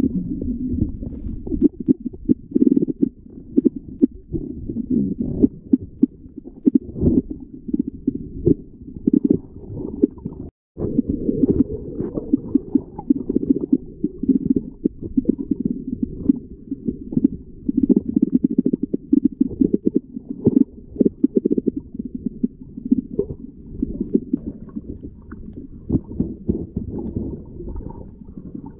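Muffled underwater rumble of moving water, heard through the water with the higher sounds cut away, shot through with irregular soft knocks and crackles; a brief dropout about ten and a half seconds in.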